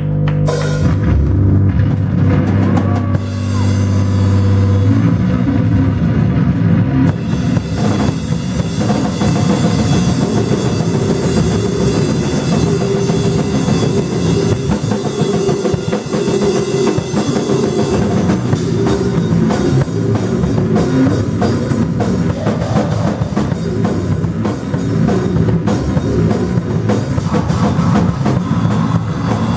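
Live rock band playing loud, noisy rock. Held low bass notes ring for the first few seconds, then a drum kit with crashing cymbals comes in and pounds on densely for the rest.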